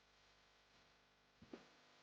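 Near silence with a faint steady hiss, broken by two quick soft knocks about one and a half seconds in.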